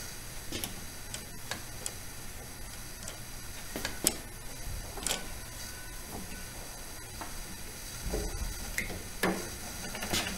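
Scattered, irregular light metallic clicks and taps of hand tools and parts being handled while the lever arm of a Bridgeport 8F milling-machine power feed is fitted and tightened, with the sharpest click about four seconds in.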